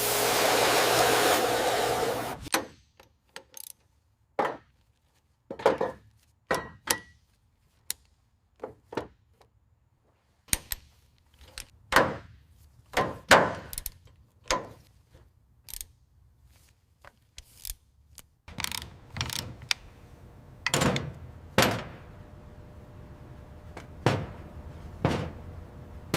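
Workshop tool sounds: a loud spraying hiss for the first couple of seconds, then a string of separate short knocks, clanks and clicks with brief silences between them.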